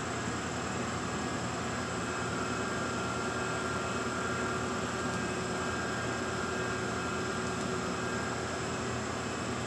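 Microcut Maxicut VMC1600F CNC vertical machining center running under power: a steady mechanical whir with a few faint steady tones.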